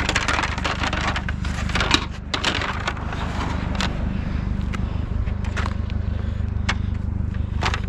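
Junk being handled and rearranged on a pile: a string of scrapes, rustles and light clunks as objects are moved and set down, over a steady low hum.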